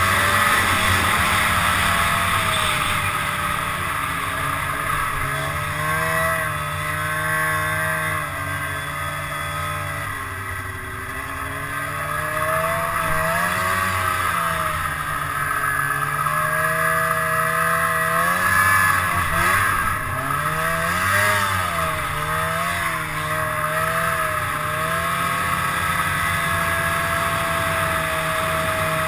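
The two-stroke twin engine of a 2002 Arctic Cat ZR 800 snowmobile running under way, heard from the rider's helmet. Its pitch rises and falls again and again as the throttle is worked, over a steady rushing noise.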